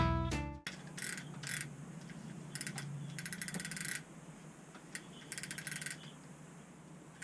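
The tail of guitar music stops in the first second, then a 1940s–50s Shakespeare trolling reel clicks in several short runs of fast ratcheting as it is worked by hand, the longest run about a second.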